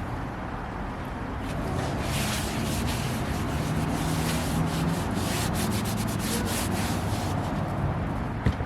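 Paper towel rubbed over the surface of a large cast iron skillet, wiping on a light coat of oil for seasoning. It is a quick run of rubbing strokes from about a second and a half in.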